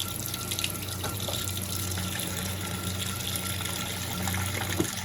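Electrolux Turbo Compacta 7 kg (LTC07) top-loading washing machine filling its tub with water for a pre-wash: a steady rush of incoming water over a steady low hum.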